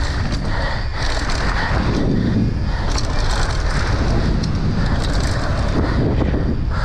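Wind rushing over the camera microphone and knobby tyres rolling on dry, rough dirt as a downhill mountain bike runs at speed, with small knocks and rattles from the bike.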